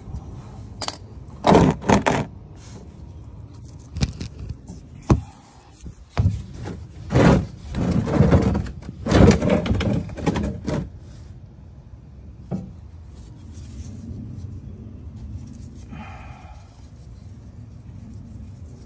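Handling noise under a truck at an oil change: clinks and knocks of a metal wrench and a plastic drain pan being moved, with a cluster of loud rustling and scraping bursts in the middle, then a steady low background hiss.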